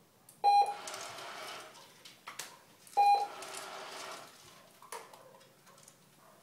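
Remote treat dispenser beeping twice, about two and a half seconds apart, each short electronic beep followed by a second or so of rattling as food is released as the puppy's reward.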